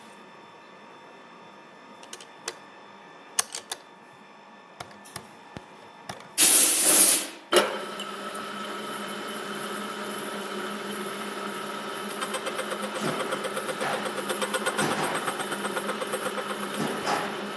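Milling machine: a few sharp clicks, then a loud hissing burst lasting about a second, after which the machine runs steadily with a hum and a whine. From about twelve seconds in a rapid, even pulsing joins it as the cutter works the metal.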